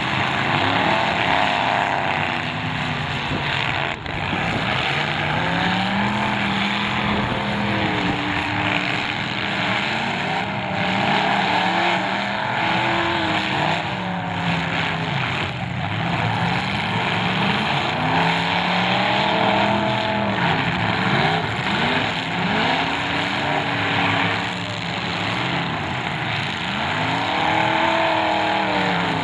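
Several demolition derby cars' engines revving up and down at once, their pitches rising and falling over one another, with a few sharp bangs of cars crashing into each other.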